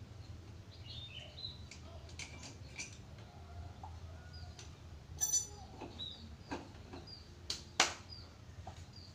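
Hand tools clicking and clinking now and then on a motorcycle engine being taken apart, the loudest a sharp click near the end. Short high bird chirps and a low steady hum run underneath.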